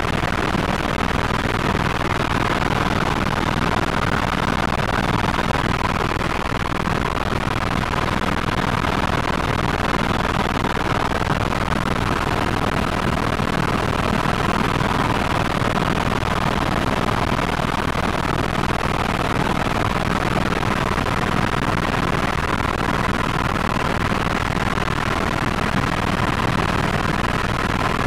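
Helicopter in flight heard from inside the cabin: a steady, unchanging drone of engine and rotors.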